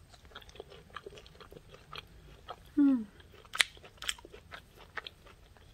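A person biting and chewing a crisp home-dried apple chip: a run of small crunchy crackles, with two louder crunches a little past the middle. A short vocal sound comes just before those louder crunches.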